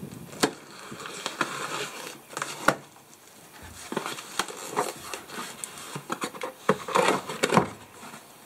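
Cardboard shipping box being cut open with a knife and its flaps and packing pulled apart: irregular crinkling and scraping with sharp clicks, busiest near the end.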